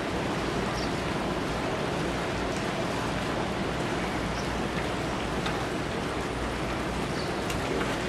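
Steady seaside ambience: an even wash of noise with a low, wavering rumble, the blend of wind and distant ocean surf.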